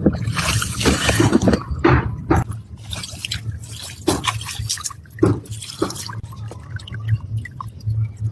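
Water splashing and dripping, loudest in the first couple of seconds and then thinning to scattered drips, over a low steady hum.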